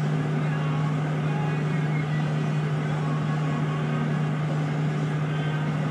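Road noise inside a car driving at highway speed: a steady low drone over an even rush of tyre and wind noise.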